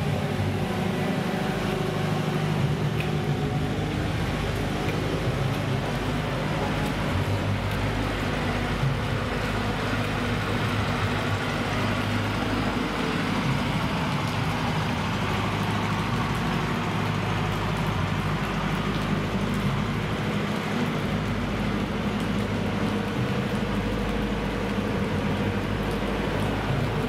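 Passenger train at a station platform: a steady low hum from the carriages under an even hiss of background noise, with no clanks or horn.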